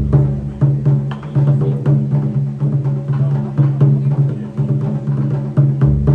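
Japanese taiko drums played by an ensemble: a fast, dense run of strikes with pitched drum tones and sharp clicks, with a deep boom at the start and another near the end.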